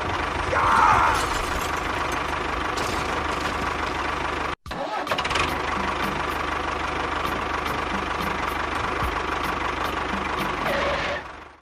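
Small electric motor of a DIY model tractor running steadily with a constant whine. It cuts out briefly about halfway through, then runs on.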